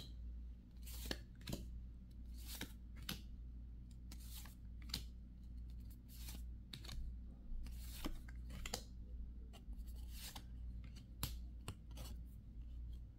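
Faint papery swishes of Yu-Gi-Oh trading cards being slid one at a time across a stack as they are flipped through, about one to two a second at an uneven pace.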